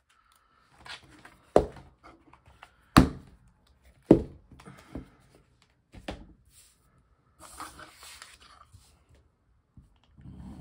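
Handling of a disc-bound paper planner and sticker book on a wooden desk: a series of sharp knocks and thuds, four of them loud, spread over several seconds, with a brief rustle of paper about two-thirds of the way through.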